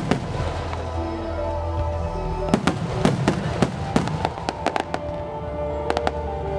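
Starmine fireworks: aerial shells bursting in a run of sharp bangs, thickest about two and a half to four seconds in and again near the end, over accompanying music, with a low rumble through the first couple of seconds.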